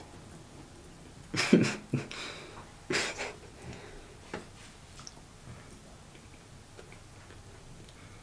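Dry saltine crackers crunching as they are bitten and chewed, two loud crunches a couple of seconds in, then a few smaller crackles fading to quiet chewing.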